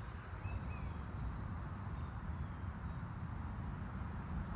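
Steady insect chorus, a continuous high-pitched drone, over a low rumble, with a few faint short chirps.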